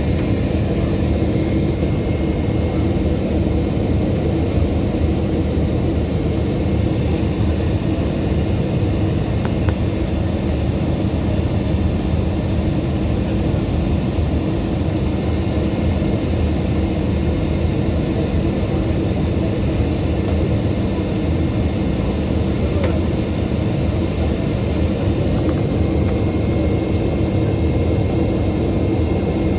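Jet airliner cabin noise: a steady drone of engines and airflow with a low hum and a faint high whine, unchanging throughout.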